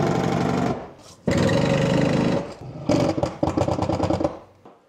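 Small electric motor of a cordless power tool running in three short bursts of about a second each, each with an even, fast-pulsing whir.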